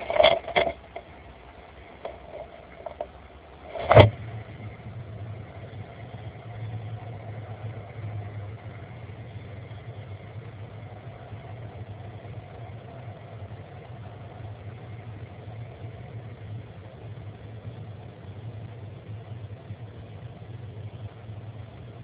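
A few knocks and scrapes against a wooden nestbox in the first second as an American kestrel leaves it, then a single sharp thump about four seconds in. After that, a steady low hum.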